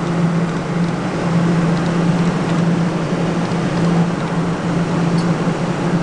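Sugarloaf claw machine running as its claw travels and lowers: a steady electric hum under an even mechanical whir.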